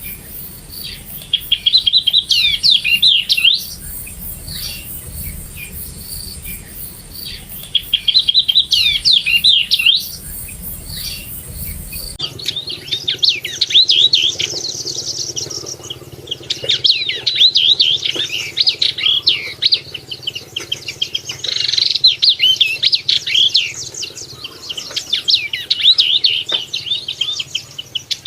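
Yellow-eyed babbler singing: repeated bursts of quick, varied chirping notes, phrase after phrase with short gaps between.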